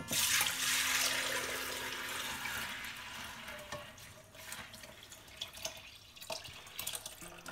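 Lukewarm boiled milk poured from a steel pot through a mesh strainer into a glass bowl: a steady liquid pour that starts suddenly, is loudest in the first couple of seconds and then thins out. A few drips and small ticks come near the end.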